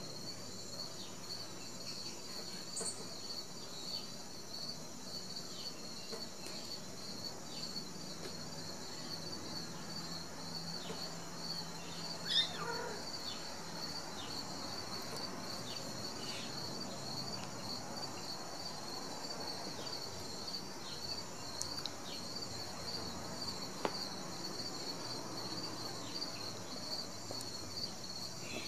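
Crickets chirping steadily in a fast, continuous pulsing trill, with a single short squeak about twelve seconds in.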